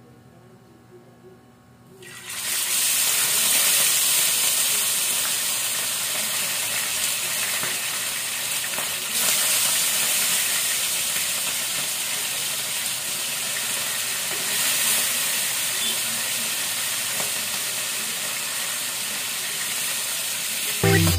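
Galunggong (round scad) frying in hot oil in a frying pan: a loud sizzle starts suddenly about two seconds in as the fish go into the oil, then keeps going steadily, swelling briefly twice.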